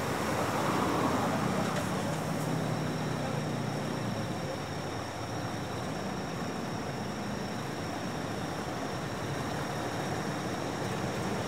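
Heavy trucks' engines running at low speed through an intersection amid road traffic noise, louder in the first couple of seconds, with a low engine hum for the first few seconds.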